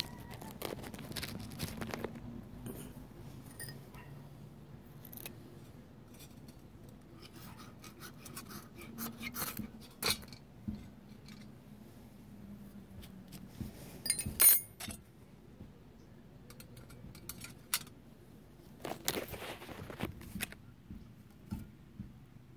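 Scattered metal scrapes and clicks from handling a small folding steel backpack stove and lighting a pine fire-starter tot in it. The loudest, a sharp bright scrape, comes about fourteen seconds in.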